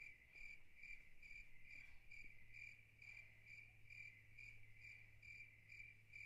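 Faint cricket chirping: a steady high trill pulsing about twice a second over a low hum, starting and stopping abruptly.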